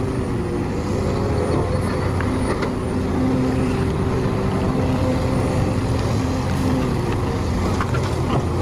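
Hitachi ZX670 hydraulic excavator's diesel engine running steadily under load as the machine digs and swings earth into a dump truck, a deep constant drone.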